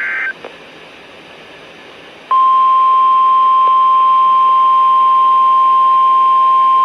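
The last of an Emergency Alert System header's data bursts ends at the very start. After about two seconds of radio hiss, the long steady single-tone alert signal begins: one loud, unbroken electronic tone that announces a special marine warning.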